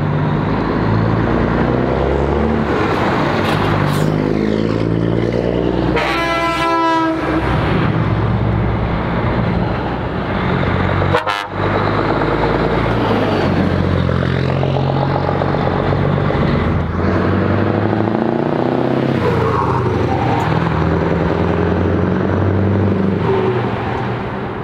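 Diesel engines of classic heavy trucks driving past one after another with loud exhausts, their engine note rising and falling as each goes by. A truck's air horn sounds for about a second, around six seconds in.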